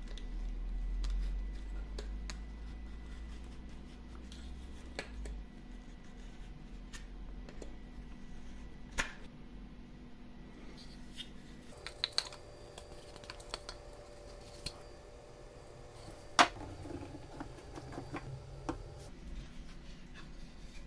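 Light clicks and taps of wood and metal as the parts of a wooden rebate plane are handled and fitted: the brass depth-adjuster wheel, the steel iron in its mouth and the wooden body. A low hum fades away over the first few seconds, and a few sharper knocks stand out about nine and sixteen seconds in.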